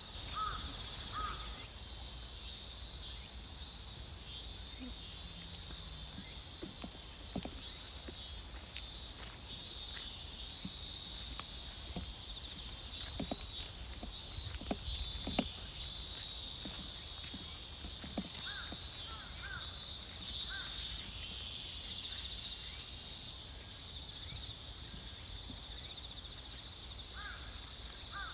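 Open rice-field ambience: a steady high chirring chorus with pulsing chirps, and crows cawing a few times, near the start, in the middle and near the end. Soft footsteps on the path come through as scattered low knocks.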